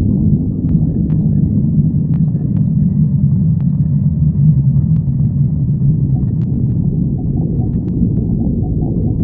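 A person's stomach growling: a long, low, drawn-out rumble, strongest through the middle, with a few faint clicks.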